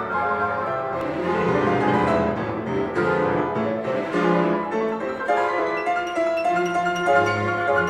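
Instrumental music led by piano, played back through a pair of bookshelf loudspeakers.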